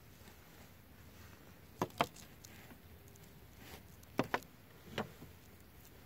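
A small bird bumping and tapping against a car's tinted side window, heard from inside the car: a few short, sharp taps on the glass, a pair about two seconds in, another pair just past four seconds and one more at five seconds.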